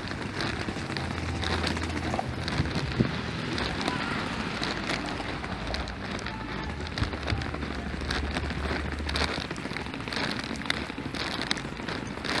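Outdoor street noise heard while walking along a paved sidewalk: a steady hiss full of small ticks and crackles, with a low rumble rising for a second or so and again for several seconds in the middle.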